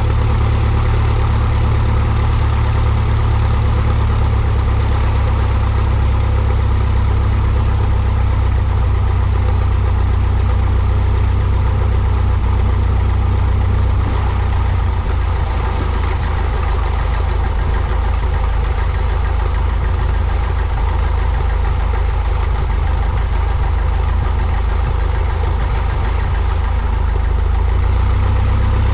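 Cessna 172's piston engine and propeller running at idle power during taxi, a steady low drone. The engine note shifts slightly about halfway through as the power changes.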